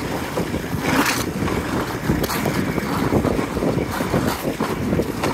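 Ski patrol rescue toboggan sliding over packed snow while being towed: a continuous rough scraping rumble from the sled's bottom, uneven with small bumps, with a brief louder hiss about a second in and again near four seconds.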